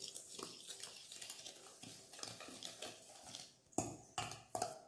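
Wire whisk scraping and clinking against a stainless steel mixing bowl as dry flour and cocoa mix is stirred, with three sharper clinks of the whisk on the bowl near the end.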